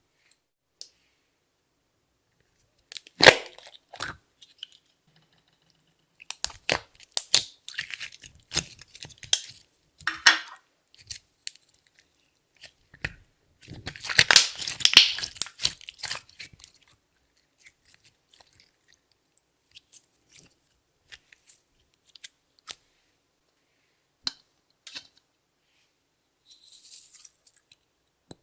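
Clear slime being worked by hand with makeup and glitter mixed in: scattered sticky crackles, pops and clicks, with a dense crackling stretch a little past the middle.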